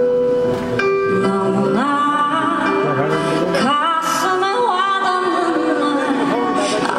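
A woman singing a song live into a handheld microphone over instrumental backing, her voice holding notes and gliding between them.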